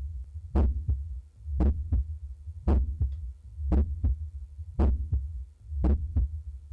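Heart sounds heard by stethoscope over the pulmonary valve area: a regular lub-dub, each strong first sound followed closely by a softer second one, about one beat a second, six beats in all.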